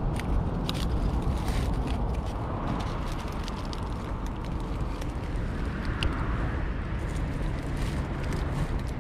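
A cat eating dry kibble from a steel dish, with small scattered crunches and clicks, over a steady low background rumble.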